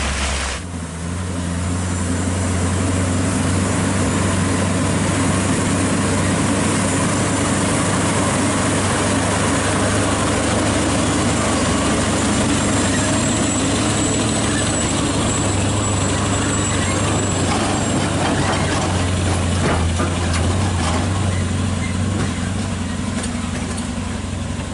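Scania R580 heavy truck's V8 diesel engine running steadily under load as it hauls a heavily laden lowboy trailer, a low engine drone over tyre and road noise. The sound changes abruptly about half a second in.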